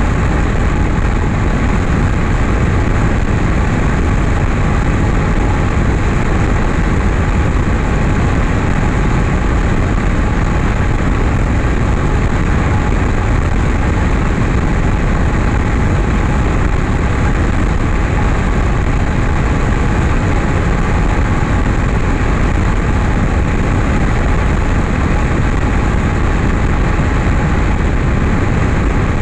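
Light aircraft in flight: steady engine drone mixed with rushing wind on a camera mounted outside the airframe.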